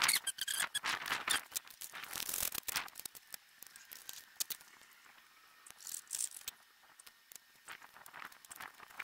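Plastic cable trunking and red-and-black twin-core cable being handled: a run of scrapes, clicks and rattles, busiest in the first three seconds and again about six and eight seconds in.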